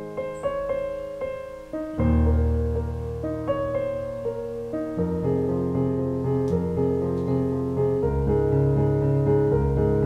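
Background piano music, with sustained chords changing every few seconds.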